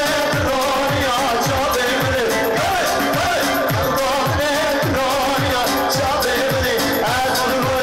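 Live amplified Middle Eastern wedding music: a man sings an ornamented melody into a microphone over an electronic keyboard. The keyboard's steady drum beat comes about twice a second.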